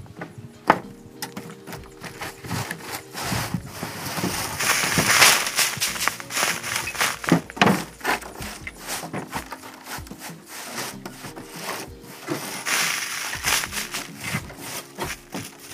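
Straw broom sweeping spilled agricultural lime and wood chips across the wooden plank bed of a trailer, in repeated scratchy strokes. There is a sharp knock on the boards just under a second in.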